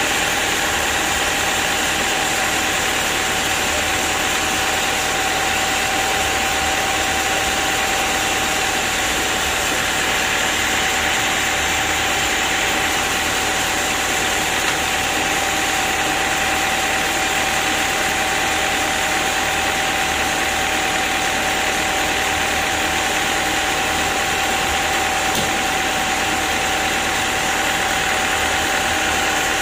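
Sawmill machinery running steadily with no load while the teak log is set on the carriage: the saw is not cutting.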